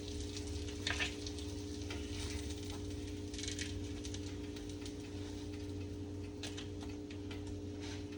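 Food frying in a pan: a steady sizzle with occasional crackles, over a steady low hum.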